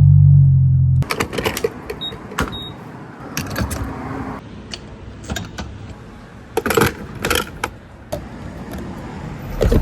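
A car engine running for about a second, then cutting off abruptly, followed by a string of sharp clicks, knocks and handling noises.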